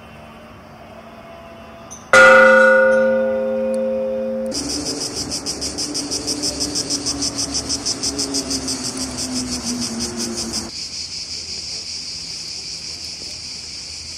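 A hanging bell struck once about two seconds in, ringing with several tones and fading until its sound cuts off about two seconds later. Then comes a high insect buzzing that pulses rhythmically and turns into a steady buzz near the end.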